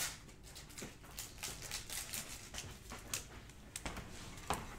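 Scattered faint clicks, taps and knocks of a person moving about and handling small items, fetching a pack of penny sleeves.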